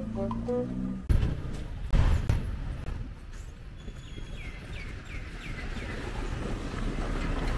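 Roadside outdoor ambience: a low rumble of traffic and wind with two heavy thumps in the first two seconds, and a bird chirping a quick run of short falling notes around the middle.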